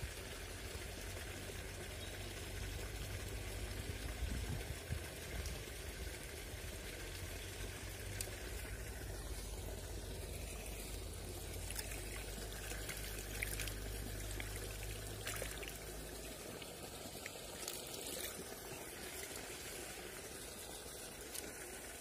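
River water flowing and trickling steadily, with water pouring over a small fall into the stream.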